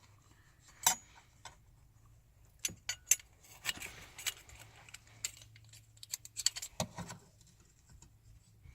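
Irregular light clicks, clinks and rustles of a strap being pulled through a small seat-release bracket and the parts being handled.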